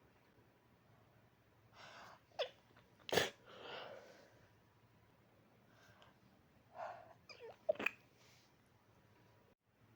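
A person stifling sneezes: breathy inhales and catches, a short sharp stifled sneeze about three seconds in, and another cluster of sharp held-back bursts and breaths around eight seconds in.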